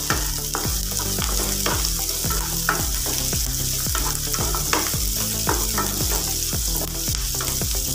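Chopped small onions, green chillies and curry leaves sizzling as they sauté in hot oil in a pan, with a steady hiss. They are being stirred, with short scrapes against the pan about twice a second.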